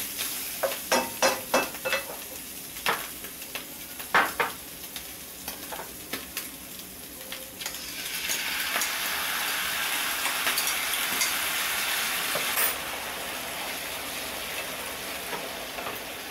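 Frying pan of onion, garlic and mashed canned milkfish (bangus) sizzling, with a utensil knocking and scraping against the pan in sharp clicks. About halfway, chopped tomatoes are tipped in from a bowl and the sizzling turns louder and steadier, then slowly eases.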